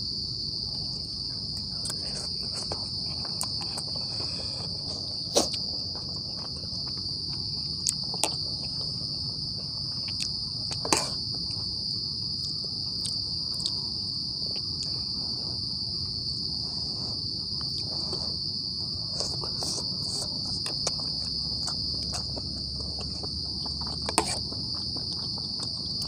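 A steady, shrill chorus of night insects in the forest, one unbroken high-pitched tone, with a few sharp clicks scattered through it.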